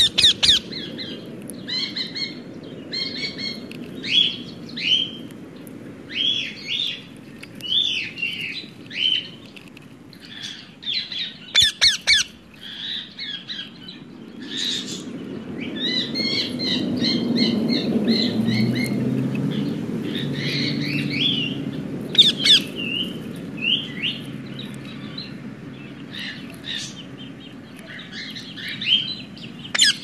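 Bird chirping and squawking in quick series of short, high calls throughout, with a few sharp clicks. A low rumble swells in the middle and fades.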